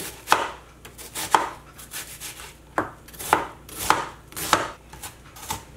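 Chef's knife slicing through a half onion and knocking on a plastic cutting board: single unhurried cuts, about one every half second to a second.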